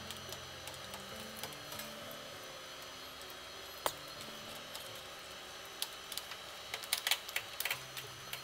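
Plastic links of a cable drag chain clicking and rattling as they are handled, with one sharp click a little before four seconds in and a flurry of clicks in the last few seconds. Soft background music runs underneath.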